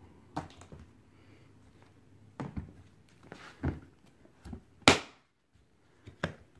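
A hard plastic carrying case being shut: a few knocks as the lid comes down, then its latches snapping closed, the loudest snap about five seconds in and another near the end.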